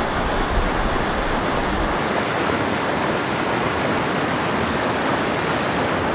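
Fast-flowing floodwater rushing over a concrete river causeway: a steady, even sound of white water.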